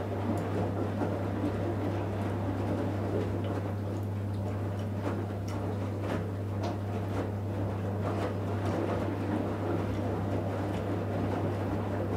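Electrolux EWF 16589 W front-loading washing machine in the wash phase of a 60 °C cotton program: the drum turning wet laundry, with a steady low motor hum under a swishing tumble and faint scattered knocks.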